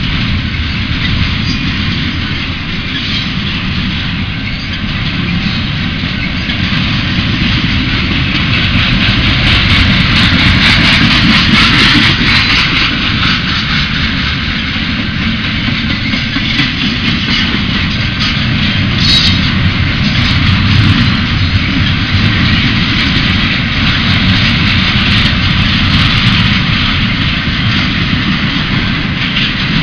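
Union Pacific intermodal freight train rolling past at close range: a loud, steady rumble of wheels on the rails, with a few sharp high clicks about ten and twenty seconds in.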